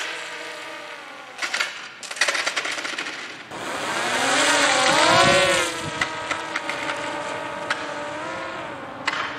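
Electric motor and propeller of a homemade RC ground-effect plane whining, the pitch wavering up and down with the throttle; it swells to its loudest about halfway through, then settles to a steadier whine as the craft runs away. A burst of crackly clicks sounds between about one and a half and two and a half seconds in.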